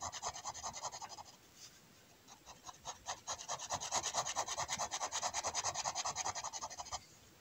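Liner pen nib scratching across kraft paper in quick back-and-forth hatching strokes, several a second. The strokes pause for about a second early on, resume, and stop near the end.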